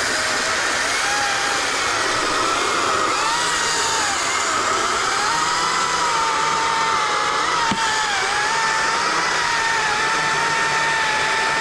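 Ryobi 40-volt cordless electric chainsaw with a 12-inch bar cutting through a thick log. The motor and chain give a steady whine whose pitch repeatedly sags and recovers as the chain bites under load.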